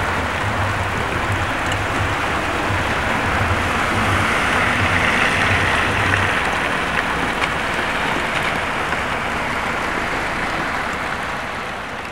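Steady hiss of heavy rain, with an irregular low rumble through the first half.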